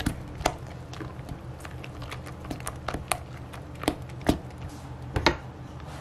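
Silicone spatula stirring and scraping thick buttercream in a glass bowl, with a series of light, irregular knocks and clinks against the glass over a low steady hum.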